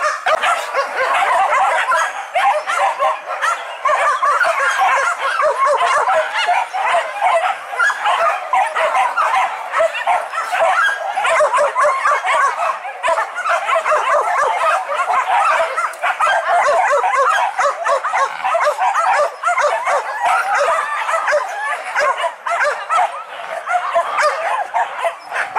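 A pack of hunting dogs barking and yelping all at once without a break, many excited voices overlapping.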